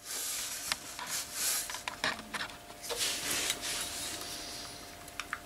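A wooden stick stirring and scraping thick black acetone-based plastic filler paste in a small cup: soft rubbing and scraping with a few light knocks.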